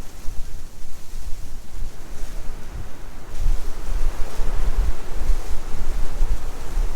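Blizzard wind blowing in gusts, buffeting the microphone with a low rumble under a steady hiss; a stronger gust swells about halfway through.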